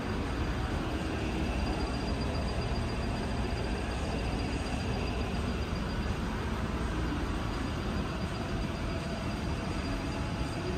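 Steady low rumbling background noise of a large store's interior, with no distinct events.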